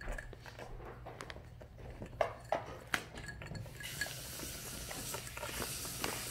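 Kittens pawing and nosing at a plastic puzzle feeder for treats: scattered light clicks and knocks of the plastic domes and pegs. A steady hiss comes in a little before four seconds in.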